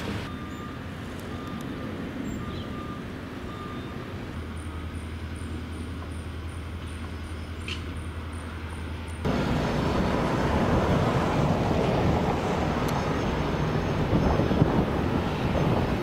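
Heavy construction equipment running on a building site, a steady engine drone with some wind on the microphone. A faint beep repeats about twice a second in the first few seconds, and the engine noise becomes louder and denser from about nine seconds in.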